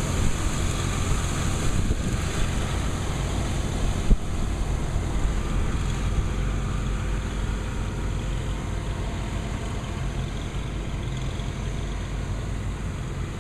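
Blizzard wind buffeting the microphone: a loud, steady low rumble with hiss over it, and a single short knock about four seconds in.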